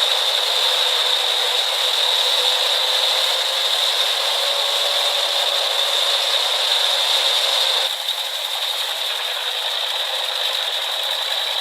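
Truck-mounted drum wood chipper running: a steady, dense mechanical noise with a strong high hiss and no bass. It drops slightly in level about eight seconds in.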